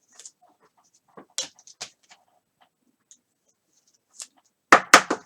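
Trading cards and a pack wrapper being handled: scattered short rustles and flicks of card stock, with a brief louder cluster of rustling near the end.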